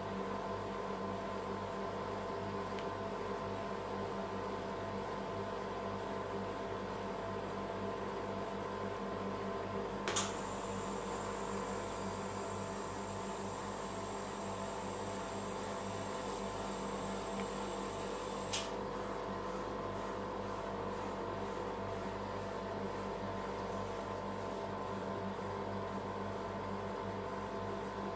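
Steady mechanical hum made of several steady tones, typical of a rolled-ice-cream machine's refrigeration unit running under its steel cold plate. Two sharp clicks about eight seconds apart, the first the loudest sound here, with a faint high whine between them.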